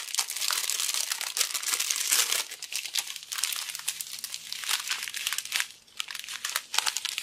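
Clear plastic packaging crinkling as bagged diamond painting drills are unwrapped and handled. The crackling is dense for the first two and a half seconds, then comes in sparser handfuls with a brief lull near six seconds.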